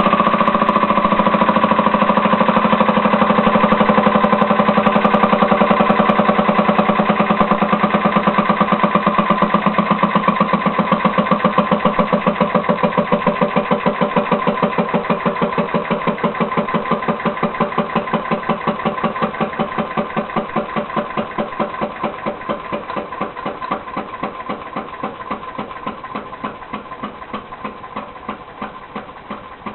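Leaf blower engine converted to a compressed-air motor, running with rapid, even air puffs that gradually slow and grow quieter until each puff can be heard separately near the end.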